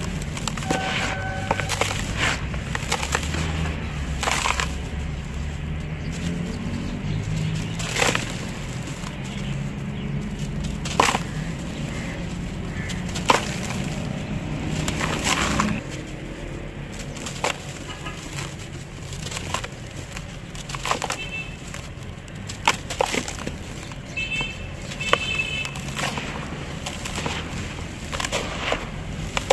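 Hands crumbling and crushing lumps of dry cement in a plastic tub: gritty crunching and powder pouring through the fingers, with sharp cracks every second or two as chunks break.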